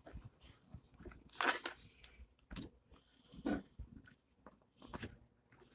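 Toy slime being squished and worked by hand, irregular wet crackling and squelching pops, the loudest about a second and a half in.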